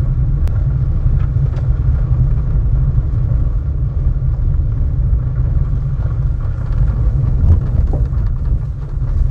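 Low, steady rumble of a car moving slowly along a gravel road, with a couple of faint clicks near the start.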